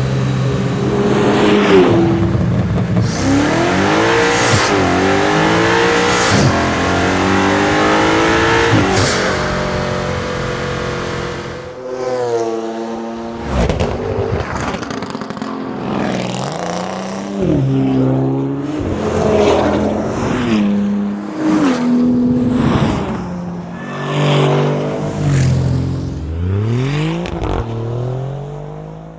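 European muscle car engine revving hard: a long run with the pitch climbing and dropping through the revs, then a series of quick rev blips that rise and fall one after another.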